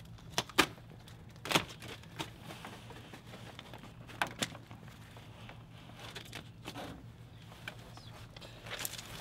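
Plastic sheeting crinkling and crackling as it is pulled off its roll, in irregular sharp snaps, the loudest about a second and a half in.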